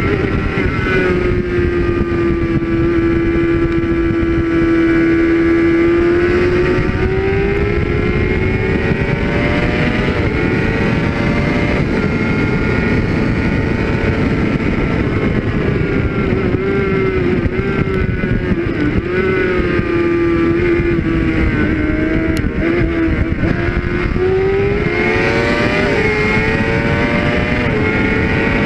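Suzuki GSX-R600 K6 sport bike's inline-four engine running hard at high revs, with steady wind rush. The engine note sags a little early on, climbs again, dips and wavers past the middle, and rises once more near the end.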